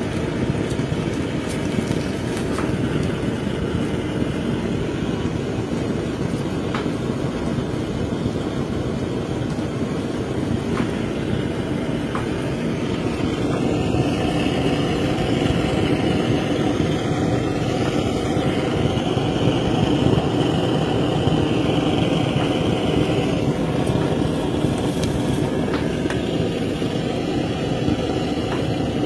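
Handheld butane blowtorch screwed onto a gas cartridge, its flame burning with a steady rushing hiss as it sears fish skin. A higher hiss joins for about ten seconds in the middle.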